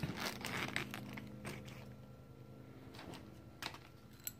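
Faint, irregular small clicks and taps of metal parts being handled as a screen spark arrestor is slid into the end of an aftermarket ATV exhaust silencer, over a faint steady hum.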